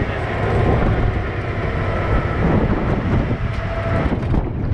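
Tractor-driven hay hopper machine running, a steady low mechanical rumble and rattle as its bottom rollers work the chopped hay, with a few sharp clicks near the end.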